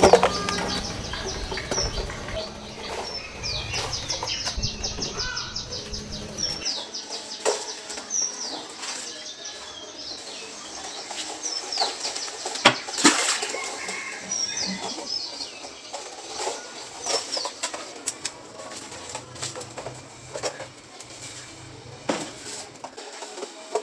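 Small birds chirping, with scattered sharp clicks and knocks and some rustling.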